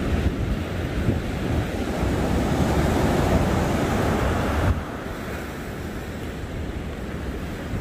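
Ocean surf breaking and washing up the beach, with wind rumbling on the microphone. About two-thirds of the way through the sound drops suddenly to a quieter, steady wash of surf.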